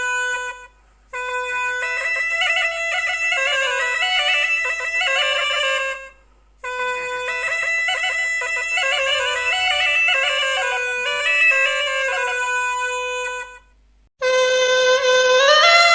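Kamış, a Turkish cane folk pipe, playing an old folk tune (türkü) in phrases. The melody stops briefly three times, about a second in, about six seconds in and near the end, each time for a breath before the next phrase.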